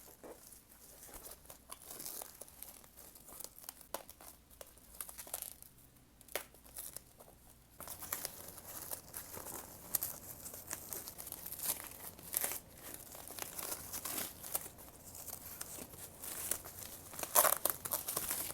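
Anti-static packaging being handled and unwrapped: irregular crinkling, rustling and tearing. It grows busier about halfway through, with the loudest crackle near the end.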